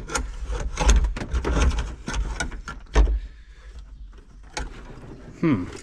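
Hands working a CB radio and its slider mounting bracket: a run of short clicks and knocks, with a few heavier thumps, the strongest about three seconds in.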